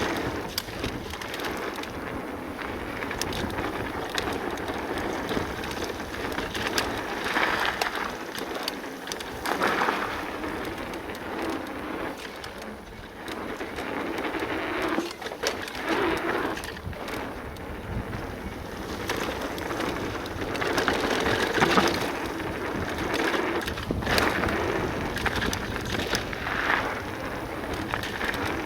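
Cube full-suspension e-mountain bike rolling fast down a dirt bike-park trail: knobby tyres crunching and rushing over the loose surface, swelling and easing every few seconds, with scattered clicks and rattles from the bike.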